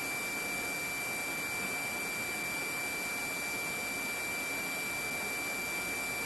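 Steady high-pitched electronic tone over an even hiss on a police helicopter's radio and intercom audio line, with nobody transmitting.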